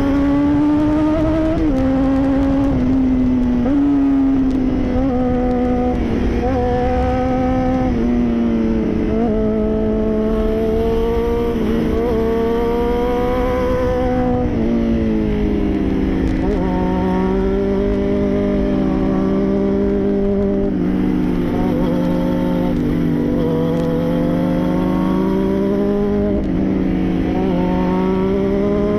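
Honda CBR600RR inline-four engine heard onboard at riding speed, its pitch rising and falling with the throttle through the bends, with a sharp drop about 14 seconds in. Wind rush on the microphone.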